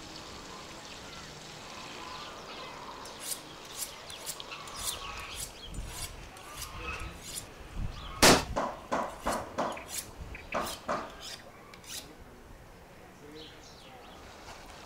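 A faint steady hiss, then a run of sharp clicks and knocks from about three seconds in, several a second, loudest about eight seconds in and dying away near the end.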